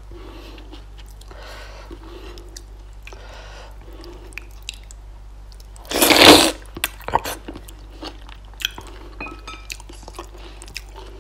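A person chewing food close to the microphone, with soft wet chewing and mouth clicks and one loud crunchy bite about six seconds in.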